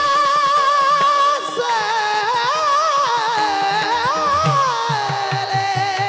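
A male kirtan singer's high voice holds a long note, then winds through rising and falling ornamented phrases over a steady drone. Drum strokes come in near the end.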